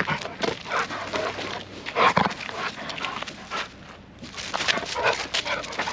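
A dog vocalising in short, irregular bursts.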